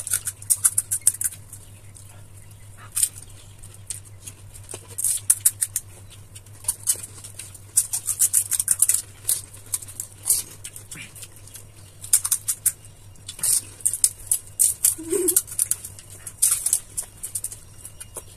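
Crisp, hollow pani puri shells crackling as fingers crack them open and teeth crunch them, in quick flurries of crackles every second or so.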